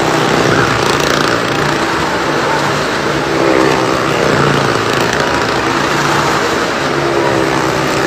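Car and motorcycle engines running hard as the vehicles lap the vertical wall of a well-of-death stunt drum, the engine note rising and falling.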